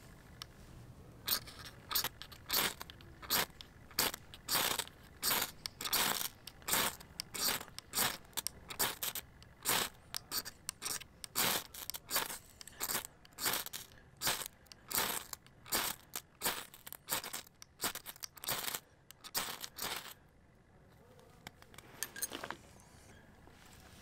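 Ferrocerium rod struck again and again with a steel striker, about two scrapes a second, throwing sparks onto a pile of wood shavings to light them; the strokes stop about twenty seconds in as the tinder catches.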